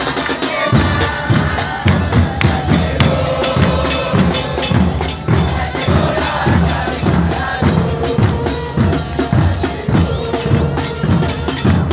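Football supporters' band: bass drums (bombos) beating a fast, steady rhythm under a sustained tune.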